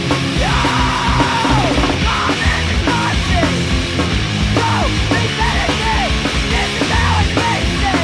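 Loud punk rock recording with yelled vocals over a dense, steady band backing.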